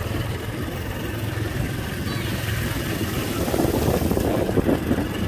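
Small motorcycle engine running steadily as it is ridden along a road, a low rumble throughout.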